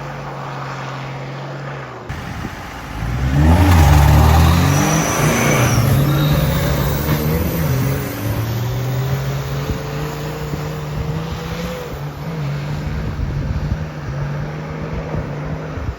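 A 4x4's engine running steadily, then revved hard about three seconds in and held at high revs, its pitch climbing slowly over the next several seconds as the truck pulls away.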